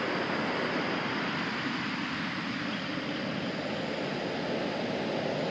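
Steady wash of ocean surf breaking on the beach.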